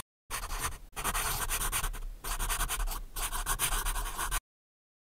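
Marker scratching across paper in a run of drawing and writing strokes with short breaks between them. It stops abruptly near the end.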